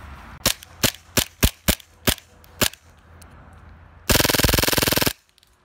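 HPA-powered airsoft G18c pistol firing: seven single shots at an uneven pace, then a full-auto burst of about a second that cuts off sharply.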